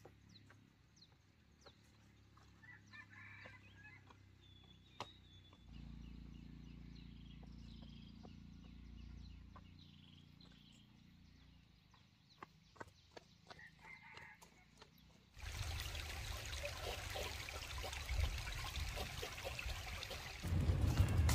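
Chickens clucking faintly among scattered light clicks. About three-quarters of the way through, a loud, even rushing noise starts suddenly and gets louder again near the end.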